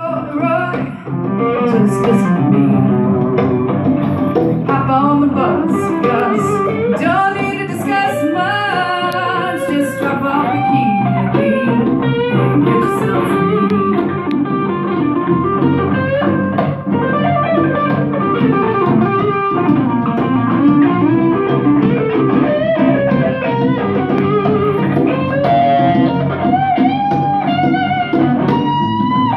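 Live electric guitar solo with bending, sustained lead lines over hand-played conga drums.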